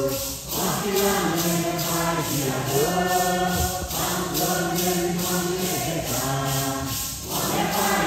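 A congregation singing a Santo Daime hymn together in unison, with shaken maracás keeping a steady beat. The singing breaks briefly between lines near the start and about seven seconds in.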